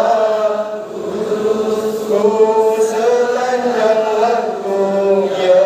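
A group of voices chanting a prayer together in a slow, drawn-out melody with long held notes.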